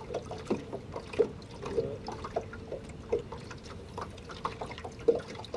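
Small waves lapping and slapping irregularly against the hull of a drifting boat, over a steady hum.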